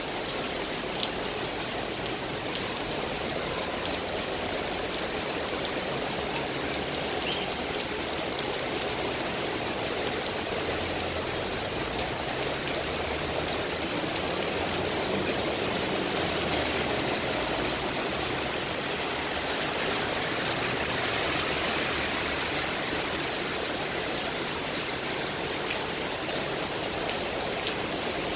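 Heavy rain pouring steadily onto paving and road, an even hiss.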